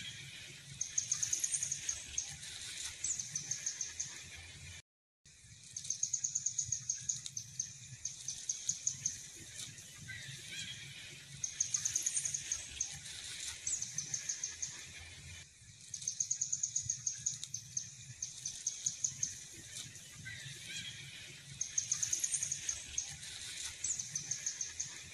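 Outdoor wildlife calls: rapid high-pitched trills and short chirps, like birds and insects, coming round again about every five seconds over a low rumble. The sound cuts out completely for a moment about five seconds in.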